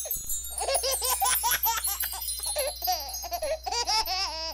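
A baby giggling and laughing in a run of short, up-and-down pitched bursts, over bright chiming at the start and a steady low hum.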